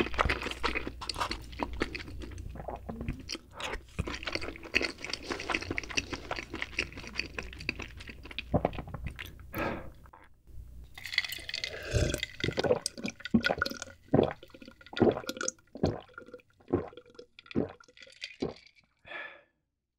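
Close-up chewing of king crab meat scooped from the shell. About halfway through, a series of gulps as ice water is drunk from a glass jar.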